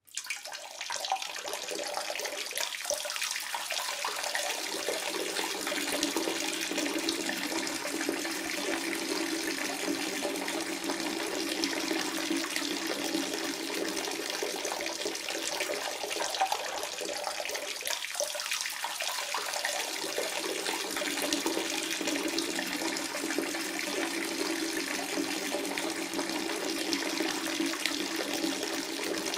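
A steady stream of water splashing, running on without a break and briefly weakening about eighteen seconds in before picking up again.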